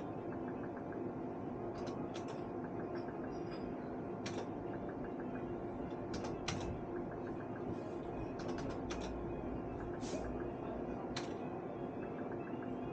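Bar slot machine in play: short runs of even, quick ticks over steady tones, with about ten sharp clicks scattered through.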